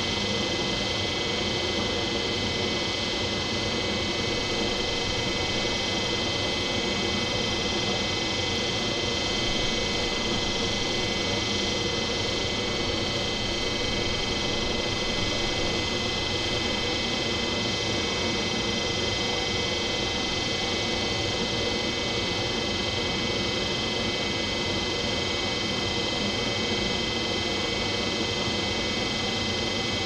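Electric locomotive standing with its equipment running: a steady hum made of many high whining tones over a low rumble.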